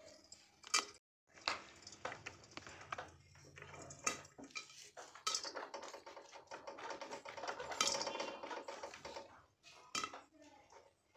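Popcorn kernels popping in a lidded steel kadhai: irregular sharp pops and clicks of corn striking the glass lid and metal pan. The popping builds to a dense patter past the middle and thins out near the end.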